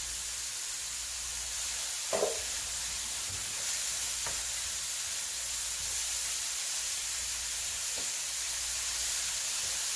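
Grated cauliflower frying in oil in a skillet: a steady sizzle, with the faint sounds of it being stirred and tossed.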